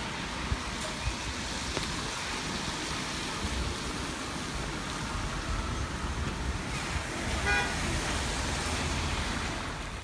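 Steady city street traffic noise, with a short vehicle horn toot about seven and a half seconds in.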